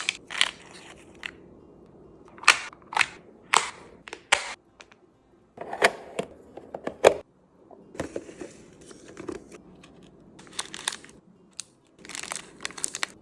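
Snack packaging and items being handled and set into a mini fridge during a restock: plastic crinkling in short bursts, broken up by sharp taps and clicks as things are put down.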